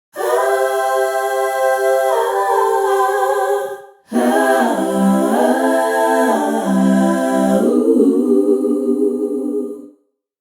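A cappella choir singing held chords with no instruments, in two phrases split by a brief pause about four seconds in; the chord shifts partway through the first phrase, and the lower voices move in the second.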